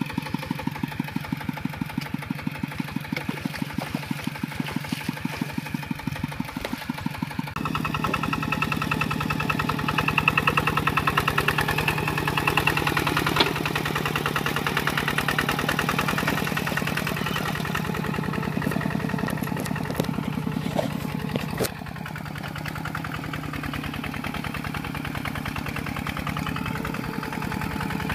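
Kubota RT140 Plus single-cylinder diesel engine on a two-wheel walking tractor, chugging with an even beat of firing strokes. About seven and a half seconds in it becomes louder and more even as it pulls the tiller through the soil.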